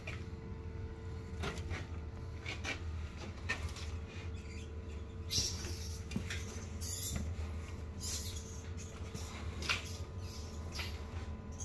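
A small feeder rat moving about in an enclosure: scattered scratches, rustles and light knocks, a few sharper ones about five, seven and ten seconds in, over a steady low hum.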